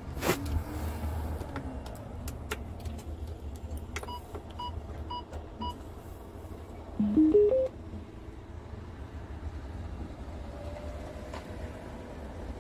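Inside a Scania P truck cab with the diesel engine idling as a low steady rumble. Four short electronic beeps about half a second apart come about four seconds in, then a short rising four-note electronic chime about seven seconds in, the loudest sound.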